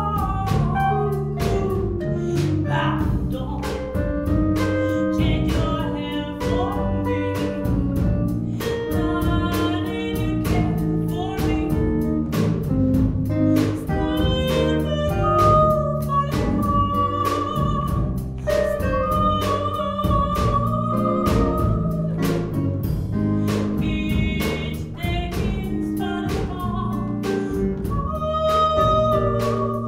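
A female vocalist sings a jazz song with a small live jazz band. A drum kit keeps a steady beat under electric guitar and bass guitar.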